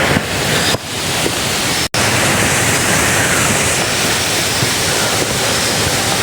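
Water rushing down a small mountain stream cascade, a loud, steady rush of noise that breaks off for an instant just under two seconds in and then carries on.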